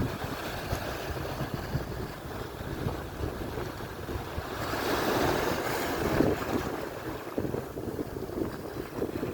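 Atlantic surf washing onto the shore, with a wave swelling louder about halfway through and then falling away. Wind buffets the microphone throughout.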